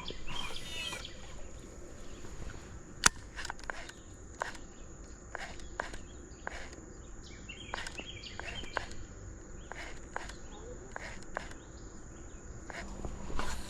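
Footsteps and scattered sharp clicks at a creek bank, one louder click about three seconds in, over a steady high insect drone, with a few short bird chirps.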